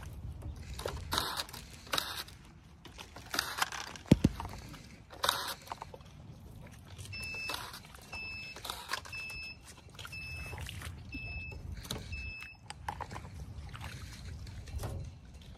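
Hand work on grapevines: canes and wire rustling and swishing, with a sharp click about four seconds in. In the second half a short electronic beep sounds six times, about once a second.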